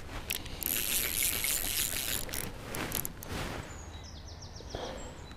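Click-and-pawl fly reel ratchet while a hooked trout is played: a loud rasping run of clicks about a second in as line goes out, then, near the end, a shorter run of quick even ticks as line is wound back onto the reel.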